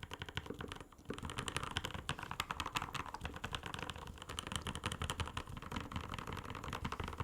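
Fast typing on a mechanical keyboard fitted with linear switches: a dense run of key clacks in a keyboard sound test, with a brief pause about a second in.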